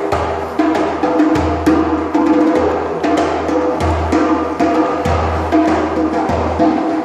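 Djembe played by hand over a didgeridoo drone: a low, pulsing drone with shifting overtones above it, and quick, sharp drum strikes running through it.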